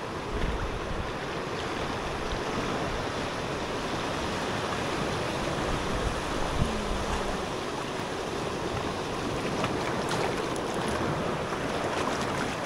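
Sea waves washing and churning over rocks at the waterline in a steady rush of water, with splashing from a person swimming close by.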